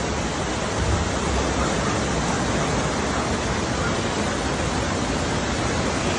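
Steady rushing of floodwater, a dense even hiss with no breaks.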